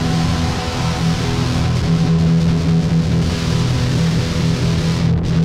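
Guitar played live in an instrumental passage between sung lines, with low notes ringing on steadily.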